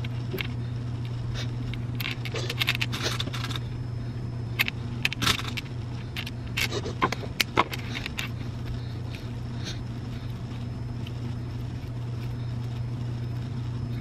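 Plastic pony beads and letter beads clicking against each other and the plastic bin as they are strung onto cord for a bracelet: scattered light clicks in clusters during the first half, sparser later. A steady low hum runs underneath.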